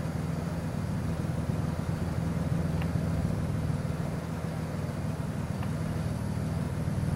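Steady low mechanical hum, like an engine running nearby, with a couple of faint ticks.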